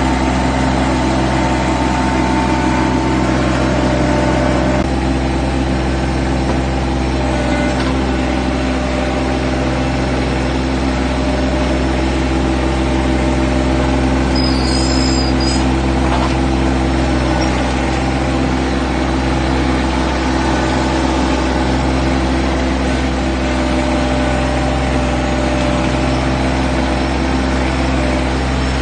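Yanmar compact tractor's diesel engine running at a steady speed, close up from the operator's seat while the front loader handles hay bales.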